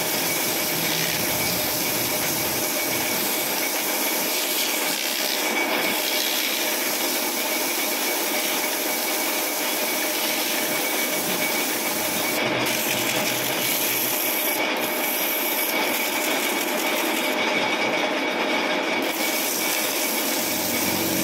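Sandpaper pressed against the clutch friction face of an engine flywheel as it spins in a lathe, a steady rasping hiss with the lathe running underneath. It is smoothing the freshly machined face.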